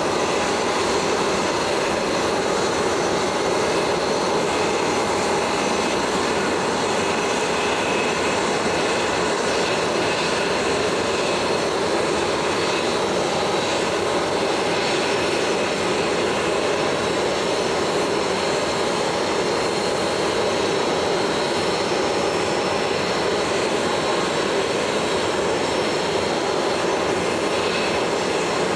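Aircraft jet engine running steadily: a continuous rush with a thin, high whine above it.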